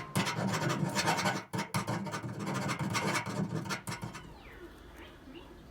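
Quick, repeated scratching and rubbing strokes, with a short break about one and a half seconds in, stopping about four seconds in.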